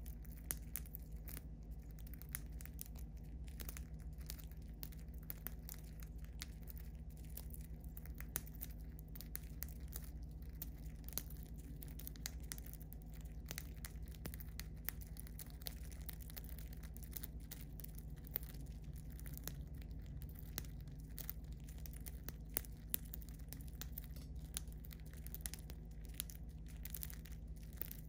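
Budgerigars cracking and husking seed in a hand: a steady stream of small, irregular crisp clicks and crackles from their beaks. A low steady hum runs underneath.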